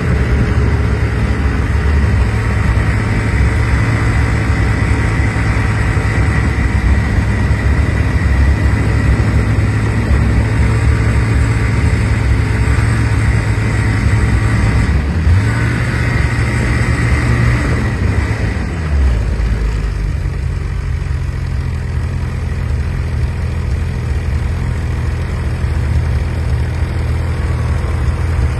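Snowmobile engine running steadily. About two-thirds of the way through it drops in pitch and settles to a quieter idle.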